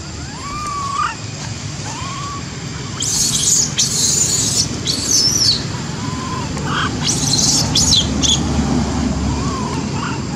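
Animal calls: a few short, arched whistled notes, then two spells of loud, high chirping bursts about three to five and seven to eight seconds in.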